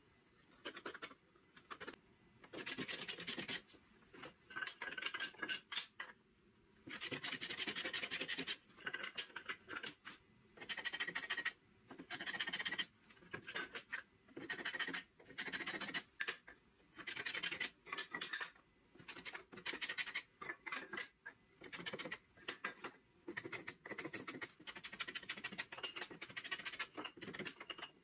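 A small hand plane shaving a narrow strip of wood in repeated strokes: a dry scraping hiss lasting about a second each, one every second or two, with short pauses between strokes.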